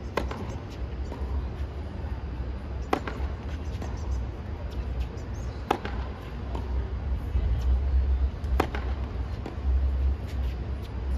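Tennis balls struck hard with rackets in a baseline rally: four sharp strikes, roughly one every three seconds, over a steady low rumble.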